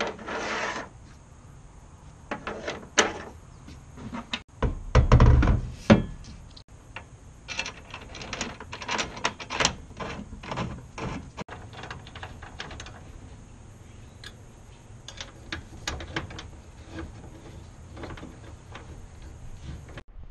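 Clunks, knocks and scrapes of a steel bed rack being handled and set onto a Toyota Tacoma's bed deck rail, with one heavy thud about five seconds in.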